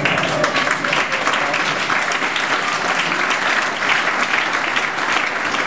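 Comedy club audience applauding: a steady, dense patter of many hands clapping that holds at an even level throughout.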